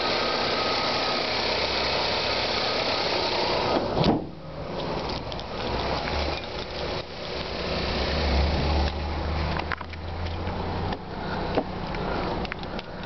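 Mitsubishi Galant 2.4-litre 16-valve four-cylinder engine idling, heard close up. About four seconds in there is a sharp knock, after which the engine sounds fainter, with scattered clicks and handling noise.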